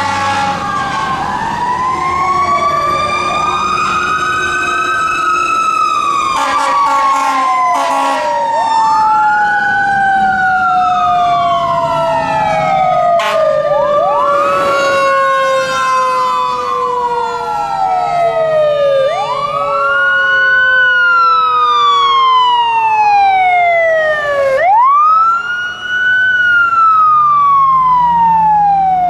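Fire truck sirens wailing, several at once and overlapping, each rising quickly and then sliding slowly down, about every five seconds. A few short air-horn blasts come about a quarter of the way in.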